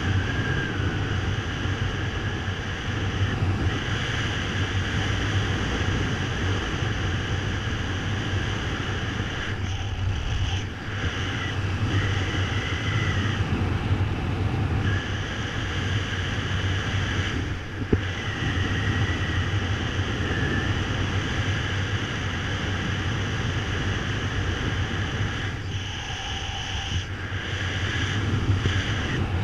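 Steady rush of air buffeting the microphone of a camera worn by a ski-equipped paraglider pilot in flight, with one short sharp knock partway through.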